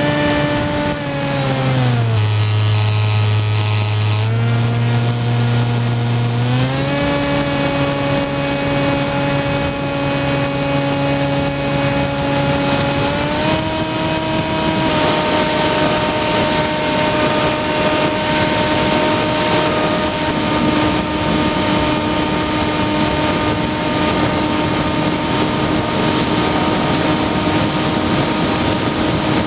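Motor and propeller of an FPV model plane (Skywalker), heard from its onboard camera: a steady whine that drops in pitch about two seconds in, climbs again around six to seven seconds, and steps up twice more as the throttle changes. Rushing wind on the microphone grows in the second half.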